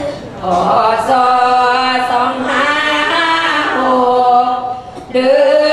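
Women's group chanting Sarabhanya, Thai Buddhist devotional verse, in an Isan melody: many voices together on long held, drawn-out notes, with a short break about five seconds in before they come back in.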